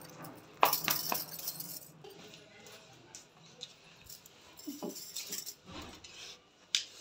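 Light clinking, jangling and rustling while a pet dog is stroked and hugged, loudest in a short burst from about half a second to two seconds in, then softer scattered rustles.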